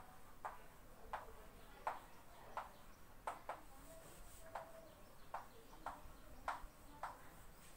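Chalk tapping and scraping on a chalkboard as words are written: faint, short taps at an uneven pace of roughly one or two a second.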